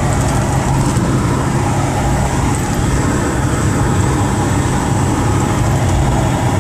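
Four-wheel drive cruising at about 100 km/h: steady engine and road noise with a constant low hum.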